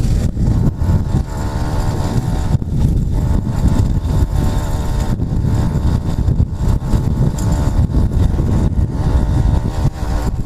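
Small two-stroke engine of an 80cc motorized bicycle running steadily, with a rough, dense low rumble along with its buzz.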